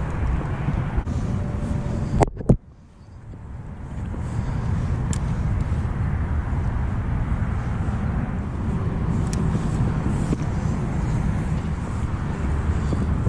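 Steady rumble of highway traffic passing close by. About two seconds in, it is broken by two sharp clicks and a sudden brief drop-out, after which the traffic noise builds back up.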